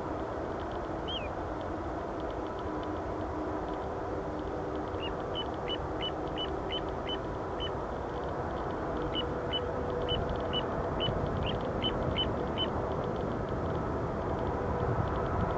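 Distant Boeing 747-8I airliner on final approach, its four GEnx-2B jet engines giving a steady drone with a few held tones that grows slowly louder as the plane nears. A run of short high chirps sounds through the middle.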